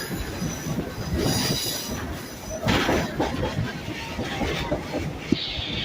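Passenger train rolling along the track: a steady rumble of the cars with the wheels squealing against the rails at times in thin high tones.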